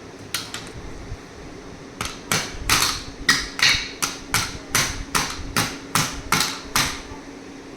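Two light clicks, then a steady run of about fifteen sharp knocks at about three a second, like a hard object being struck over and over.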